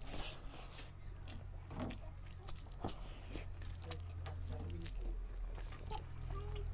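A person eating rice with fish and dal: short wet clicks and chewing noises at close range, over a steady low hum.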